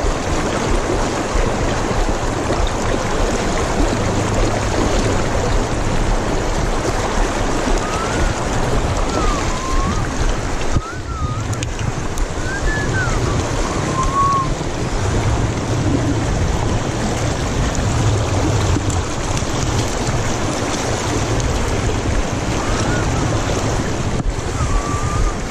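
Shallow mountain river rushing over rocks around the wading angler's legs, a steady loud wash of moving water with wind buffeting the microphone. A few faint short whistles come through about a third of the way in and again near the end.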